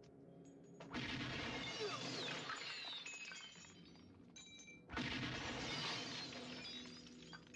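Two loud crashes of shattering glass and falling debris, about four seconds apart. Each starts suddenly and trails off in a long clattering tail.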